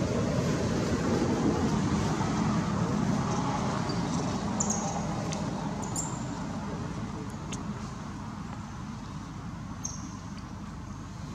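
Steady noise of passing road traffic, loudest in the first few seconds and slowly fading, with a few faint ticks.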